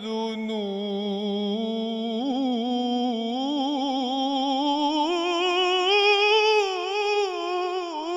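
A man's solo voice singing an Islamic ibtihal (religious supplication chant) into a microphone, unaccompanied. He holds one long, ornamented melisma on a single vowel that climbs in pitch through the middle and falls back near the end.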